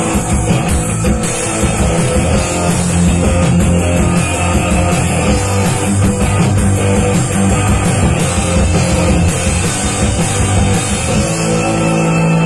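Live rock band playing the instrumental close of a song with electric guitar, keyboard and drums; about eleven seconds in the drumming stops and a single chord is held.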